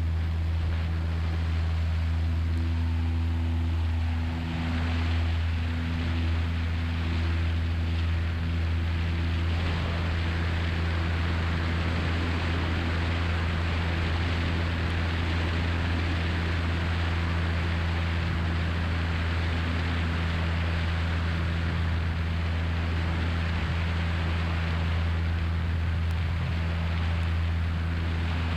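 1969 Cessna 172's four-cylinder Lycoming engine and propeller running steadily at takeoff and climb power, heard inside the cabin as a constant low drone under a rush of air noise.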